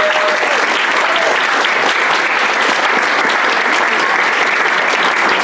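Audience applauding: steady, dense clapping that begins just before and keeps up throughout.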